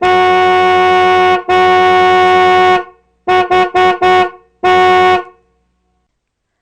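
Car horn honking at one steady pitch: two long blasts, then four quick toots and one more short toot, then it stops.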